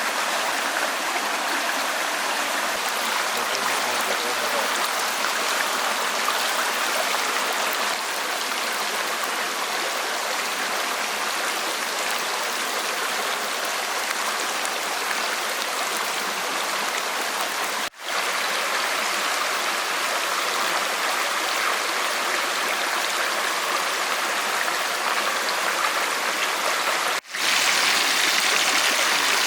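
Running water of a stream, a steady, even rush. The sound cuts out for an instant twice, past the middle and near the end, and is a little louder after the second break.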